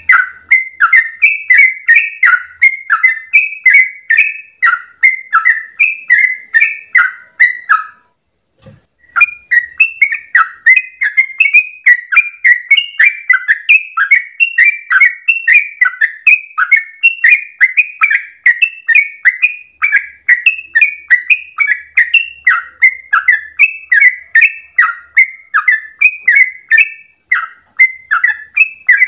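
Yellow-vented bulbul (trucukan) singing a long, rapid 'ropel' run of short, bubbly warbled notes, about two to three a second, with one brief break about eight seconds in.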